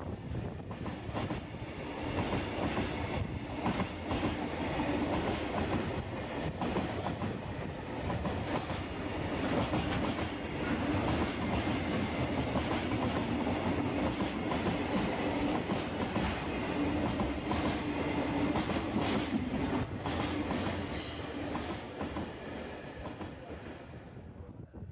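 Freight train passing close by, a long steady run of wagon wheels clicking over the rail joints with a low steady hum underneath; the sound cuts off abruptly near the end.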